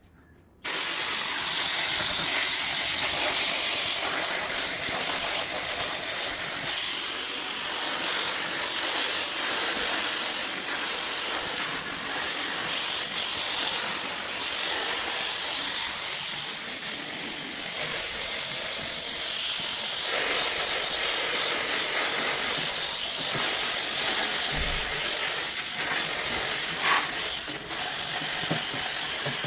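A pressure spray hissing steadily, cutting in abruptly about half a second in.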